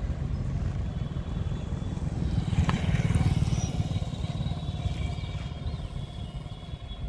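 Passenger multiple-unit train rumbling along the track as it pulls away. A motorcycle passes close by, loudest about three seconds in, and the sound fades toward the end.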